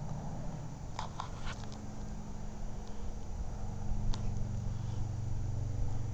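Steady low engine hum that grows louder about three and a half seconds in, with a few light clicks.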